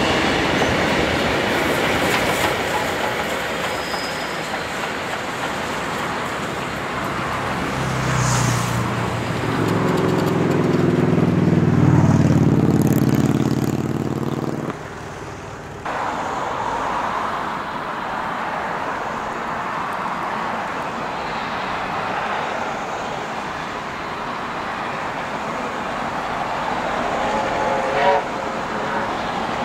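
Passenger train carriages rolling along the track, with a deep train horn sounding for about six seconds near the middle. Then a steam locomotive approaches in the distance over steady rail noise, with a brief higher whistle near the end.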